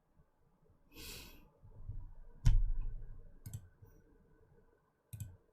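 A breathy puff of air about a second in, then a sharp knock with a low thump, the loudest sound, followed by a few softer clicks.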